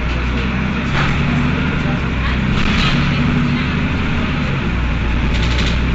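Diesel city bus with a ZF Ecomat automatic transmission pulling in second gear, the engine running under load with a steady low hum that swells and eases a few times. Partway through, the torque-converter lock-up clutch engages in second gear, taking it from converter drive to locked drive.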